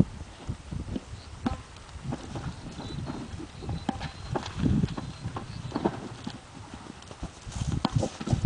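Quarter Horse's hooves thudding irregularly on dry ground as it moves about, with sharper knocks as it nudges and pushes a large plastic ball. The thuds grow louder near the end.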